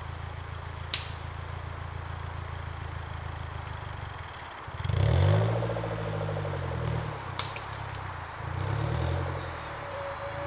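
Suzuki Jimny JB43's engine running at low revs, then revving up sharply about halfway through and easing off, with a second rise in revs near the end. Two short sharp clicks, one about a second in and one later.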